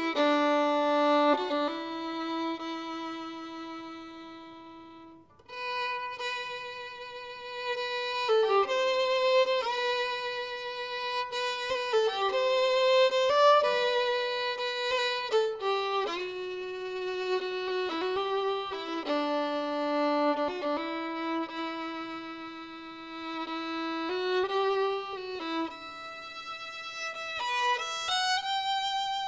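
Background music: a slow violin melody of long held notes. It fades briefly about five seconds in, then carries on.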